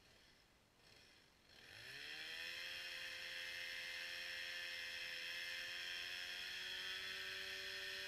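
Stihl chainsaw, faint, coming in about a second and a half in with a rising pitch and then running steadily at high speed.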